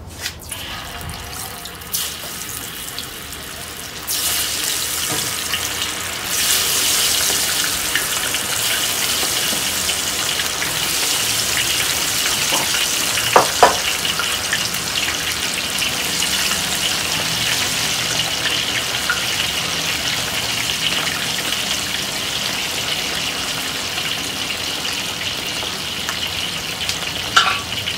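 Chicken wings deep-frying in hot oil in a steel wok: a steady sizzle that grows louder in two steps over the first several seconds. A couple of short sharp knocks come about halfway through.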